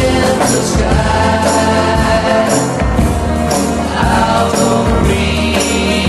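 Mid-1960s pop record playing: a band with a steady beat, high shimmering percussion strokes about once a second, and choir-like backing vocals without clear words.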